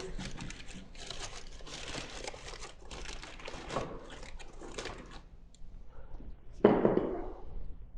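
Newspaper crinkling and dry kindling sticks rustling and knocking together as kindling is laid on crumpled newspaper in a wood-burning fireplace: a run of short, dry rustles, with a louder clatter about three-quarters of the way through.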